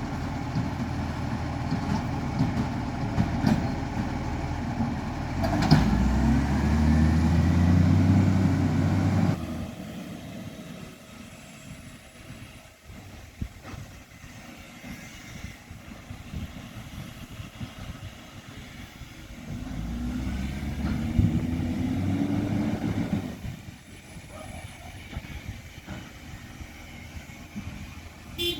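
Garbage truck's diesel engine with an exhaust leak, idling and revving up twice: the first rise about six seconds in drops off suddenly a few seconds later, and a second rise comes about two-thirds of the way through.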